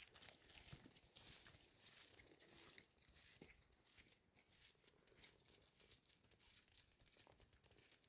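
Faint, irregular crunching of footsteps in snow.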